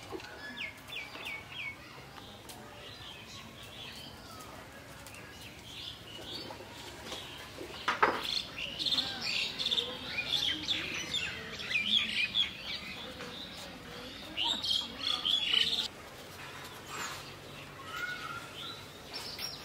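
Many small birds chirping and calling: four quick chirps near the start, then dense overlapping chirping from about eight seconds in until near the end. A brief sharp sound about eight seconds in is the loudest moment.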